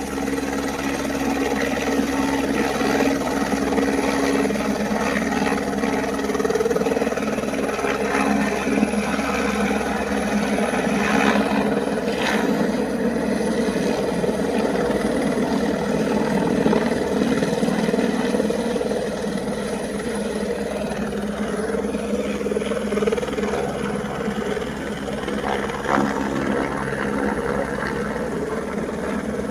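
Helicopter running steadily, with the engine's whine and the fast, even chop of the rotor blades.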